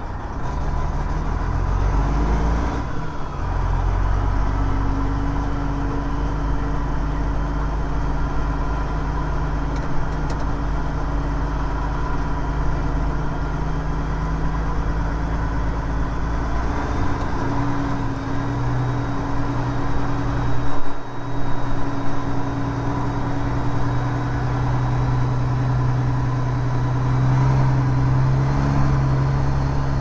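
Detroit diesel engine of a Freightliner semi running under way, heard from inside the cab: a steady drone that breaks briefly about 3 seconds in and again about 21 seconds in, as the 13-speed transmission is shifted.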